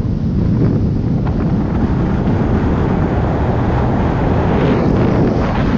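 Wind buffeting the microphone of a camera on a moving Suzuki motorcycle, over the steady drone of the bike's engine and road noise.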